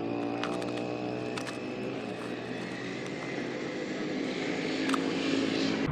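A steady engine drone with an even hum, its hiss building and growing a little louder in the last couple of seconds, with a few faint clicks.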